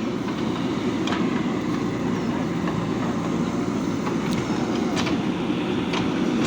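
Diesel engine of a JCB 3DX backhoe loader running steadily under work, with a few sharp metallic knocks from the machine scattered through it.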